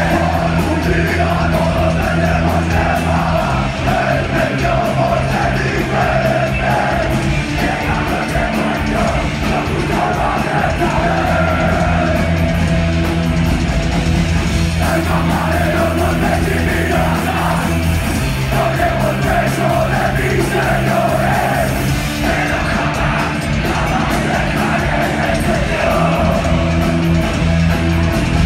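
Live oi! punk band playing loud: distorted electric guitars, bass and drums with shouted vocals, heard through the hall.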